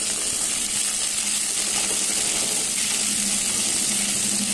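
Pointed gourd (potol) pieces frying in mustard oil in an open pan, with a steady sizzle. A wooden spatula stirs through them near the end.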